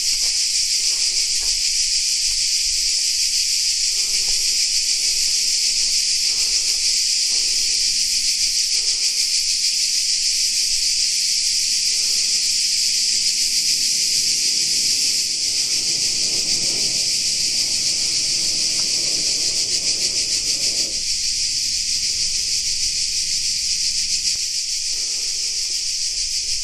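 A chorus of cicadas buzzing loudly and without a break: a continuous high-pitched shrill.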